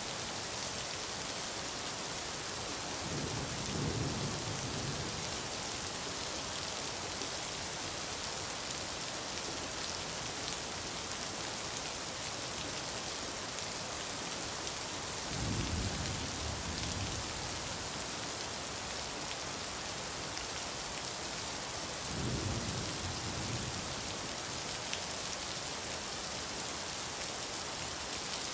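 Steady rain falling, an even hiss, with three short low rumbles: one a few seconds in, one about halfway, and one about two-thirds of the way through.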